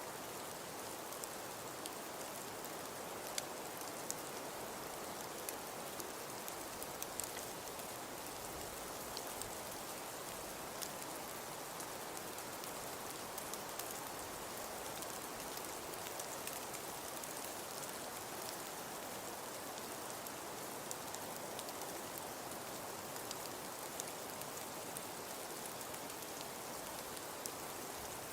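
Snowfall ambience: a steady, even hiss of falling precipitation with scattered light ticks of it landing, much like light rain.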